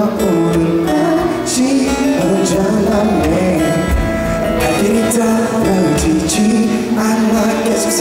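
Live pop concert music filling an arena: the instrumental opening of a song, a shifting melody with sharp percussion hits a few times.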